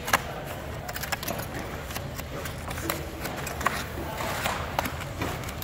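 Cardboard display-tray blanks being folded and pressed by hand: scattered short taps, scrapes and knocks of cardboard over a steady low hum, with faint voices in the background.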